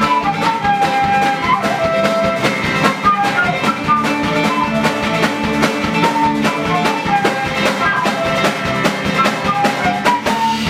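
Irish folk-punk band playing: a flute carries a stepping melody over electric bass, acoustic guitars and a drum kit keeping a steady beat.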